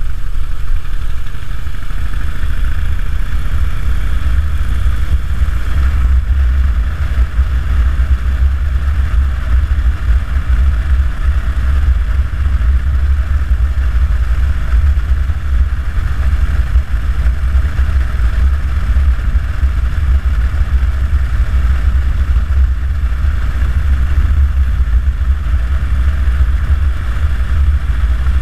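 2009 Harley-Davidson Dyna Super Glide's Twin Cam 96 V-twin engine running steadily while the bike cruises along the road, heard from a handlebar-mounted camera; the sound is deep and even throughout.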